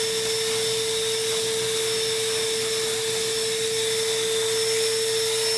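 DeWalt 9-gallon wet/dry shop vacuum running steadily, a hum with a steady whine over a rushing hiss, like a loud hairdryer.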